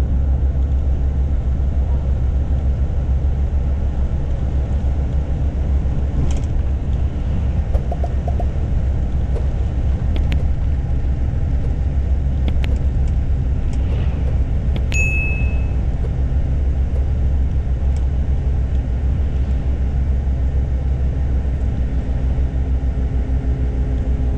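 Steady engine and road rumble of a moving intercity coach bus, with scattered light clicks and rattles and one brief high beep about fifteen seconds in.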